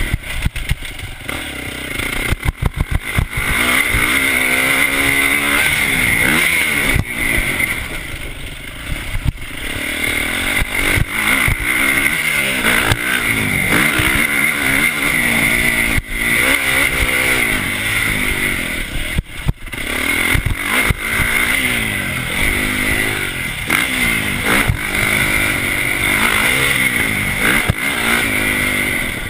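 Motocross bike engine heard close up from a handlebar-mounted camera, revving up and falling back over and over as the bike is ridden around a dirt track. Sharp clattering knocks cut in, a quick run of them about two to three seconds in.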